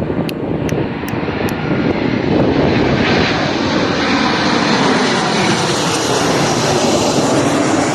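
Jet airliner's engines, a loud steady rush whose hiss grows brighter as the aircraft draws nearer. Four sharp ticks, evenly spaced, come in the first second and a half.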